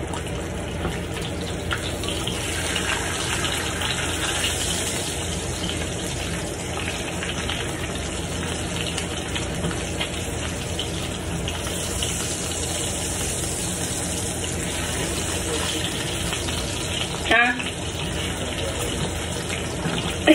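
Scrambled eggs sizzling steadily in a frying pan on too high a heat, hot enough that they stick to the pan. A brief high-pitched sound stands out about 17 seconds in.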